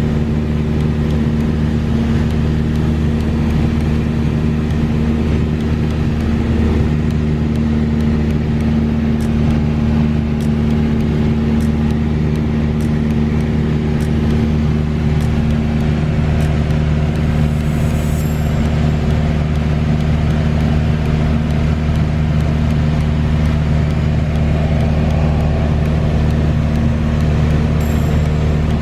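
Piper light aircraft's piston engine and propeller droning steadily at a constant pitch, heard from inside the cabin in flight.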